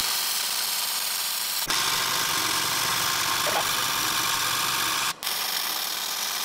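MIG welding arc of a welder-driven metal 3D printer laying down weld beads: a steady, dense hiss, cut twice, with a short break near two seconds and a brief dropout about five seconds in.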